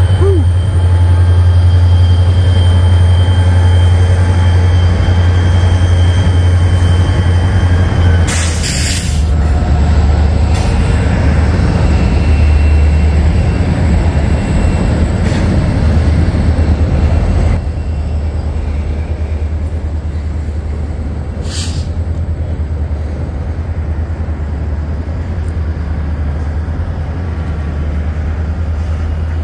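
BNSF freight train passing close overhead on a wooden trestle: the diesel locomotives rumble by, then the string of cars rolls across in a steady, loud rumble. Two brief sharp noises cut through, about eight seconds in and again around twenty-one seconds, and the noise drops a step about seventeen seconds in.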